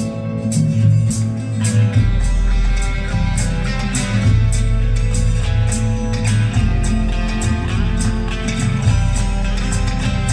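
Guitar music played back through a pair of Bose 601 Series IV floor-standing speakers. A deep bass line comes in about two seconds in.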